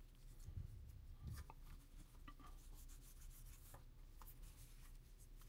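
Near silence with faint handling sounds: a microfiber cloth rubbing on a small camera, and a few small taps and clicks from fingers on the camera body, the clearer taps in the first second and a half.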